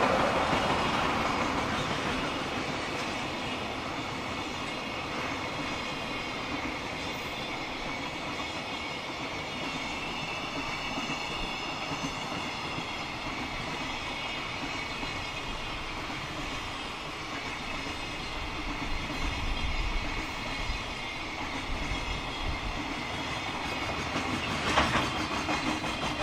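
Container wagons of a JR Freight train rolling past with a steady rumble and clatter of wheels on rail. The sound is loudest at the start as the EF210 electric locomotive draws away. A sharp knock comes near the end.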